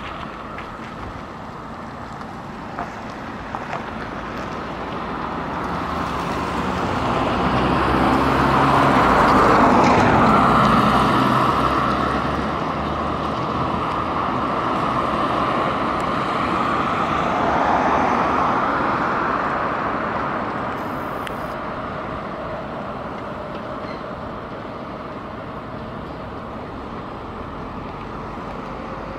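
Cars passing along a city street, their tyre and engine noise swelling and fading: loudest about a third of the way in, with a second, smaller pass about two-thirds in. A faint rising whine comes in near the end.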